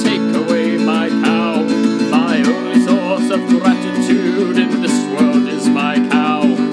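A man singing a folk-country song to his own steadily strummed acoustic guitar.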